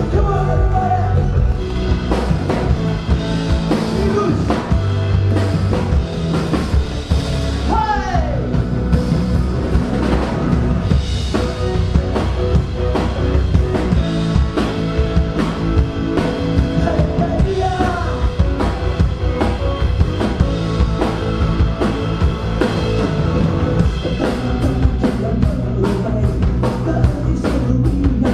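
A rock band playing, with drum kit and electric bass, and a man singing over it.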